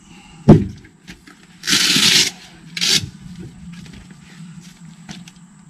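A sharp knock about half a second in, then two bursts of rubbing and scraping, the first longer, with a few light clicks after, as gear is rummaged out of a boat's storage compartment.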